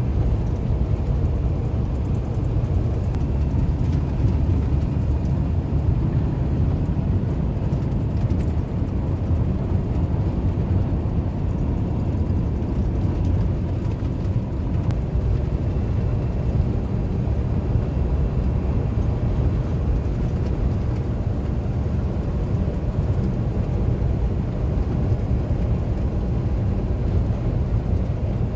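Heavy truck on the move: a steady, unchanging low rumble of engine and road noise.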